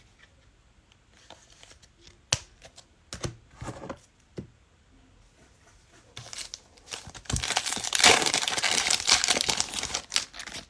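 A trading card pack's wrapper being handled and torn open. A few light clicks and rustles come first, then about three seconds of loud crinkling and tearing near the end.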